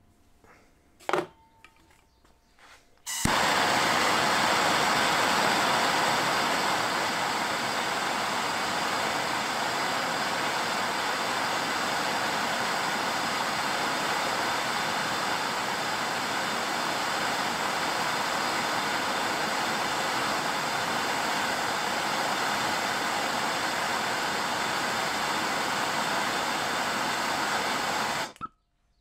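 Handheld gas blowtorch flame lit with a sharp pop about three seconds in, then hissing steadily while it heats a joint to melt soft solder, and cut off abruptly near the end. A brief knock about a second in comes before the torch is lit.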